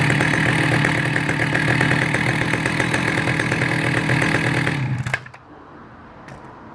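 Husqvarna L65 two-stroke chainsaw engine idling steadily, then shutting off abruptly about five seconds in.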